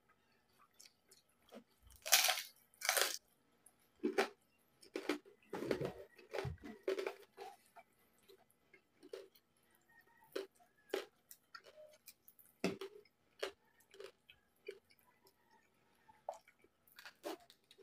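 A person chewing crispy pata (deep-fried pork leg) with rice: irregular crunches and chewing clicks, loudest in a cluster about two to three seconds in and again around five to seven seconds.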